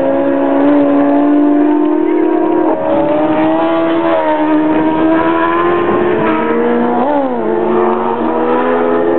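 Racing sidecar outfit engine running at high revs as it passes. The high whine climbs steadily, drops sharply about three seconds in, and dips and rises again a couple of seconds before the end.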